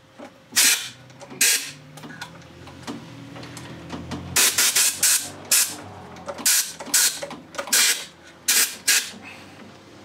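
Compressed-air blow gun firing short blasts of air into the carburetor's low-speed circuit passage to blow out a blockage. About ten short hissing puffs come in irregular groups, most of them after about four seconds.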